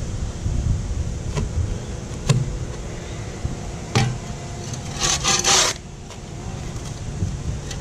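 Garden spade cutting sod along the edge of a driveway: a few sharp knocks as the blade goes in, then a short harsh scrape about five seconds in, over a low wind rumble on the microphone.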